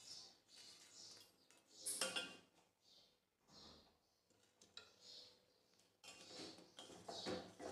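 Faint repeated scrapes and clinks of a steel spoon against a steel pot and a nonstick tawa as vermicelli is scraped into milk and stirred, with one louder clatter about two seconds in.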